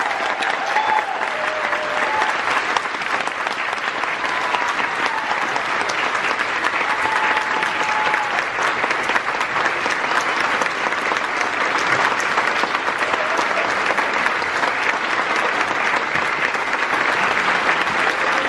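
Audience applauding steadily in a concert hall, with a few voices calling out over the clapping.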